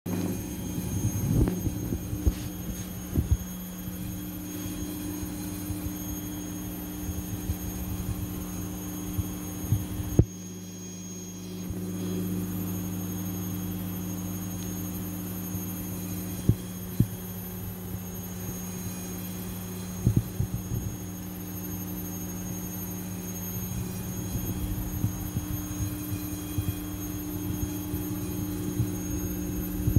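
A steady low electrical hum, with bumps and rustling as the phone is handled close against a puppy's fur.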